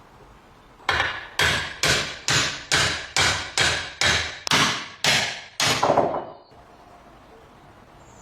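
Hammer blows, about eleven in a steady rhythm of roughly two a second, each ringing briefly.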